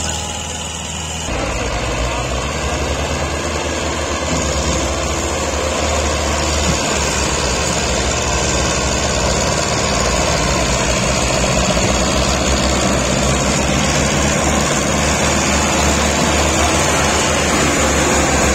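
Diesel engine of a Belarus tractor running under load as it hauls a sugarcane-laden trolley up a slope. It steps up about a second in and then grows slowly louder as the tractor draws near.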